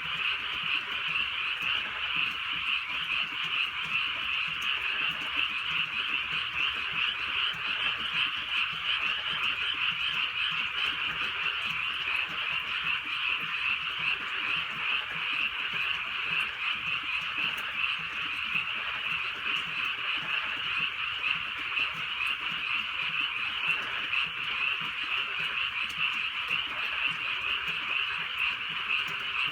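A dense chorus of many frogs calling at once, their calls overlapping into a continuous, even wall of sound with no pauses.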